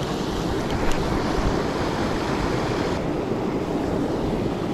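Steady rush of flowing creek water, an even noise that holds without a break.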